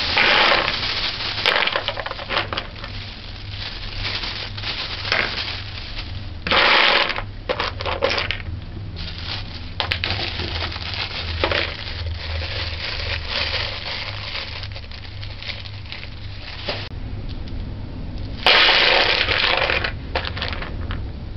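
Dried broad beans and kidney beans rattling and clicking as they are poured into a bowl and stirred through by hand. There are three louder rushes of pouring: at the start, about a third of the way in, and near the end.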